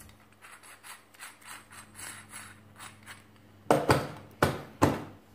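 Keyed drill chuck handled and turned, its metal sleeve and jaws giving a string of soft clicks, then three sharp knocks about two thirds of the way in as it is set into a hard plastic carrying case.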